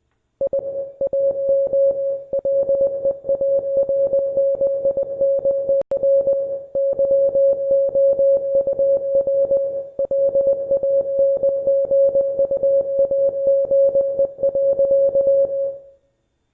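International Morse code sent as a single steady tone, keyed on and off in fast dots and dashes, spelling out English text. It starts about half a second in, breaks briefly around six seconds in, and stops just before the end.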